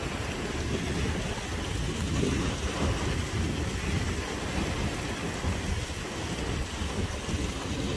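Steady rushing of a hillside stream tumbling down a rocky channel, with a low, uneven rumble underneath.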